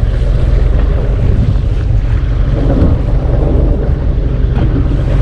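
Fishing boat's engine running with a steady low hum, and wind buffeting the microphone.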